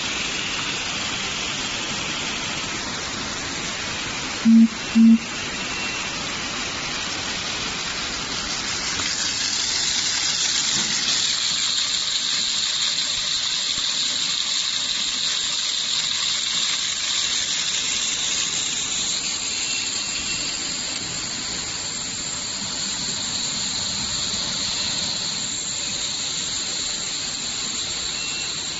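Steam shrink tunnel hissing steadily on a bottle sleeve-labelling line, the hiss growing stronger and brighter about ten seconds in and shifting again near twenty seconds. Two short, loud, low beeps come about four and a half seconds in.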